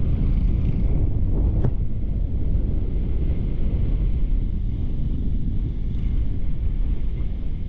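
Wind rushing over the microphone of a camera on a moving motorbike, a steady low rumble, with one short click about a second and a half in.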